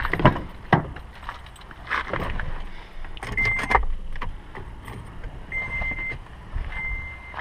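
Knocks and a jangle of keys, then three short, high, steady electronic beeps: a car's warning chime while the ignition is switched on to test the new turn signal bulb.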